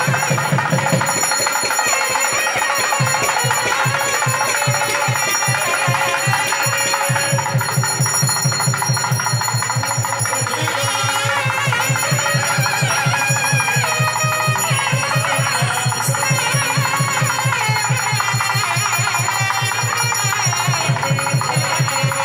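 Puja bells ringing continuously over temple music with a fast, even drum beat of about five strokes a second and a wavering melody, the accompaniment to an arati. The beat is uneven for the first few seconds, then settles.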